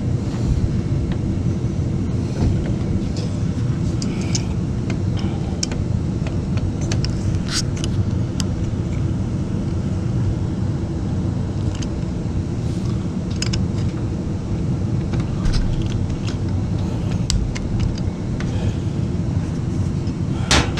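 Scattered clicks and taps of plastic hose fittings and a water valve being worked into place by hand, over a steady low rumble.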